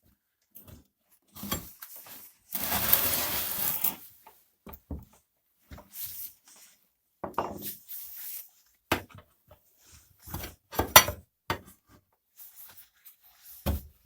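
Tyre lever levering a rubber motorcycle tyre bead over the wheel rim: a rubbing scrape of rubber on metal lasting about a second and a half early on, then scattered clicks and knocks of the tool against the rim.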